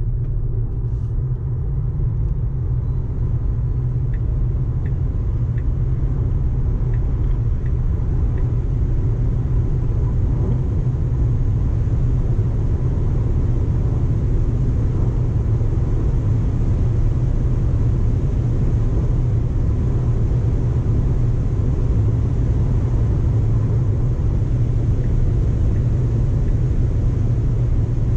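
Cabin noise inside a Tesla Model Y Long Range AWD under hard acceleration to over 200 km/h: a steady, deep road and wind rumble that grows slowly louder as speed builds.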